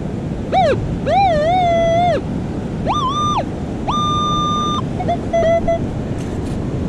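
Minelab Equinox metal detector sounding target tones as its coil passes over a buried metal target: a low wavering tone twice, then two higher steady tones, then a few quick short low beeps near the end. Steady surf hiss underneath.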